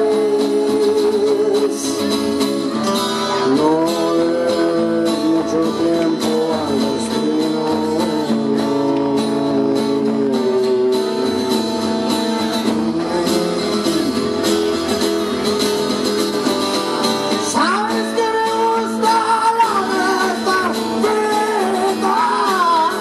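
A man singing a song while strumming a twelve-string acoustic guitar, played live through the stage microphones.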